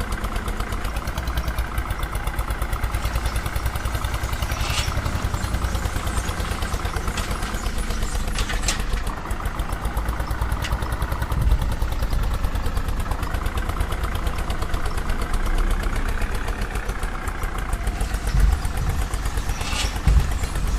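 Vehicle engine idling with a steady, rapid chug, with a few brief knocks and clanks over it.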